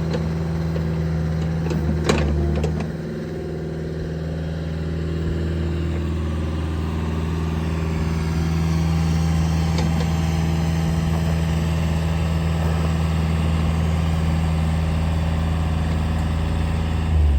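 Caterpillar 305E CR mini excavator's 40 hp diesel engine idling steadily, with a short clank about two seconds in. The engine is shut off right at the end.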